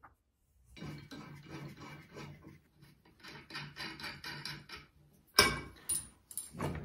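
Cultipacker parts (steel end brackets and the segmented roller) handled on a tabletop: a run of quick rubbing, scraping strokes, then a sharp knock about five and a half seconds in, followed by a few lighter knocks.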